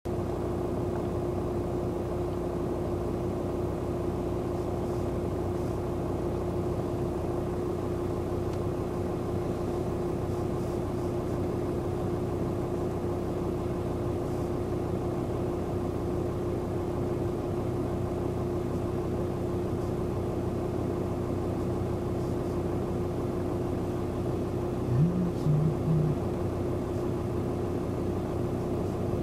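Motor running steadily at a constant speed, a continuous drone with one strong steady hum. About 25 seconds in, a brief louder sound rises in pitch and then breaks into a few short pulses.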